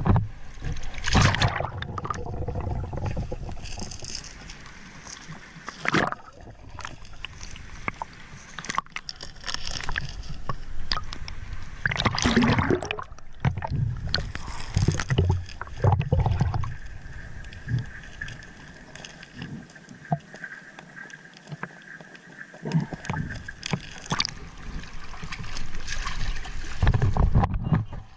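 Water sloshing and gurgling around a small boat, with irregular knocks and bumps and low rumbling surges.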